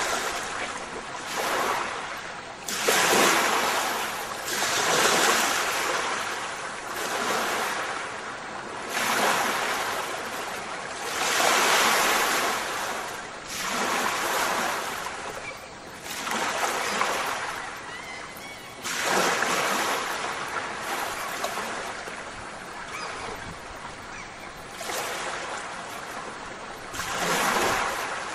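Ocean surf: waves washing in and drawing back, one swell about every two to three seconds.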